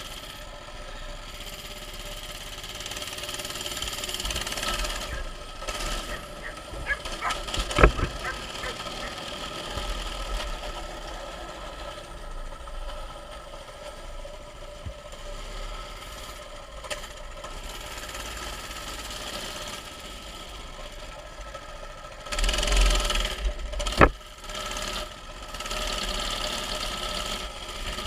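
Mini bike's small engine running as the bike is ridden, its level varying, with a few sharp knocks, the loudest about eight seconds in and again near the end.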